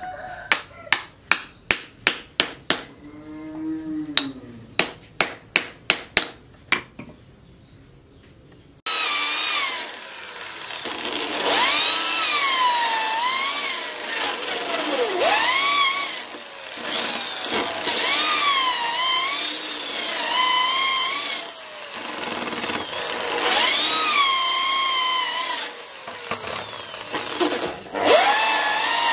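A hammer strikes the end of a wooden knife handle about three times a second in two runs, driving the handle onto the tang. About nine seconds in, a handheld electric drill takes over, boring into the wooden handle, its motor whine rising and falling in pitch as the bit loads and frees.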